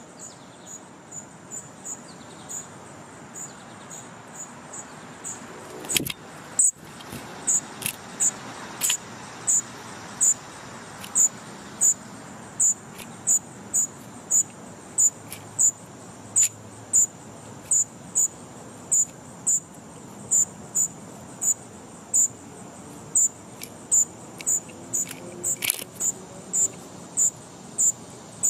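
An insect chirping in short, high pulses at a steady rate of about one and a half a second, fainter at first and louder from about six seconds in. Sharp knocks sound about six seconds in and again near the end.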